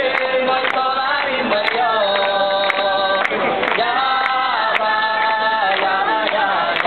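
A group of voices singing together in long held notes. The voices slide together to a new pitch every second or two.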